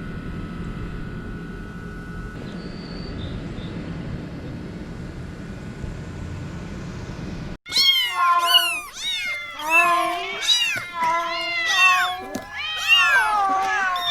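Steady low background noise, cut off abruptly about halfway through. Loud cat meowing follows: a quick string of rising and falling meows that overlap one another.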